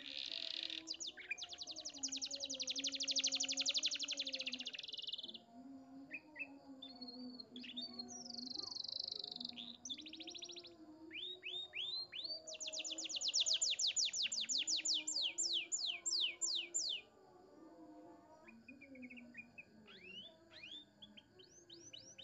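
Domestic canary singing: long, very rapid trills (rolls) and runs of quick falling whistled notes, in phrases broken by short rests.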